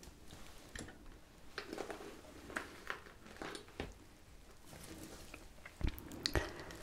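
Close-miked hands brushing and tapping on a beaded, embroidered tablecloth: faint scattered crackles and soft taps, with two louder soft knocks about six seconds in.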